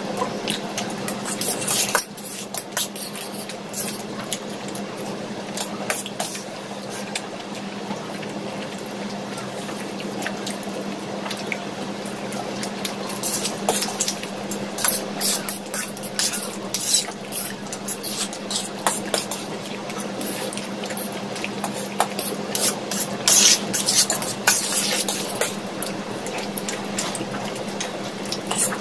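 Two people eating noodles at close range: wet slurps of noodles and chewing, with steel forks clinking and scraping on steel plates in short, irregular bursts.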